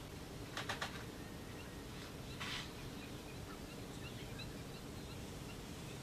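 Faint, scattered chirps of distant wetland birds over a steady low background rumble, with a quick run of three or four sharp clicks about half a second in and a short hiss at about two and a half seconds.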